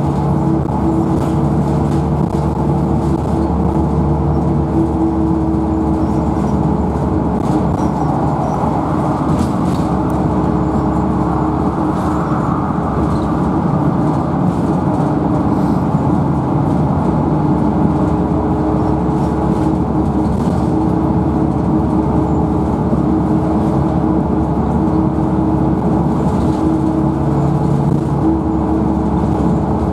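Dennis Dart single-deck bus on the move, heard from inside the saloon: engine and drivetrain running steadily with a steady hum, over tyre and road noise. Light rattles of the interior fittings come and go.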